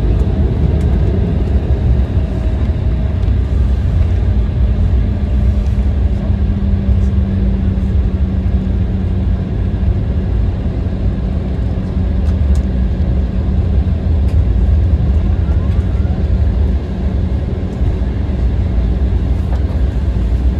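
Cabin noise in an Embraer E190 rolling out and taxiing after landing: a steady low rumble from the wing-mounted GE CF34 turbofans and the landing gear rolling on the pavement. A steady hum sits over it from a few seconds in until near the end.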